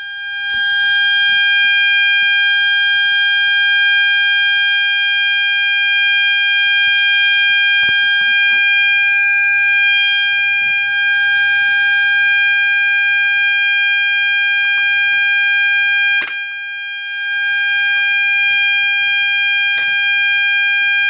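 Gentex GOS multi-tone fire alarm sounder strobe, set off from a manual pull station, sounding one steady, unbroken tone. A sharp click comes about sixteen seconds in, with a brief dip in loudness.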